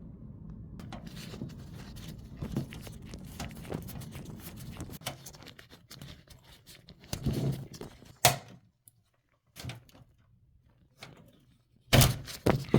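Clicks, taps and knocks of computer parts being handled and fitted during assembly, over a steady low hum in the first half. It ends in a burst of louder sharp clicks and knocks.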